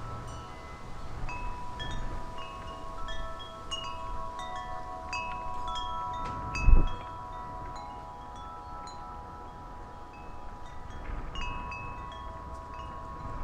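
Metal wind chimes struck irregularly by the breeze, their notes ringing on and overlapping, with wind rumbling on the microphone. About halfway through comes a brief, loud low thump, the loudest moment.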